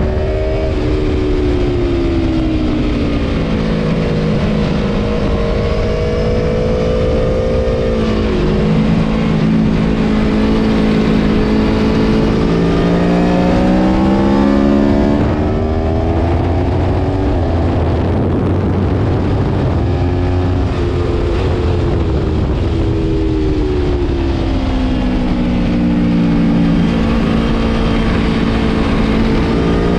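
Aprilia Tuono V4 Factory's V4 engine at racing speed, heard from on board. Its revs climb and drop again and again, with stepped changes between them, over a steady rushing noise.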